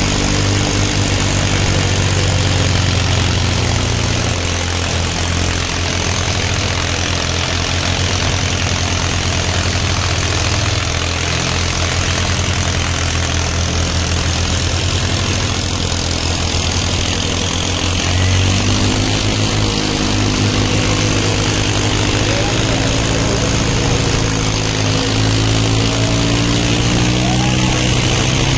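Tractor diesel engines running hard under load as two hitched tractors pull against each other in a tug-of-war. The engine note shifts a few seconds in and climbs again about two-thirds of the way through.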